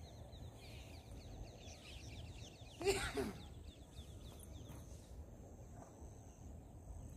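Quiet open-field ambience: faint birdsong, quick series of small chirps through the first few seconds, over a low steady rumble. About three seconds in, a brief, louder vocal sound falls in pitch.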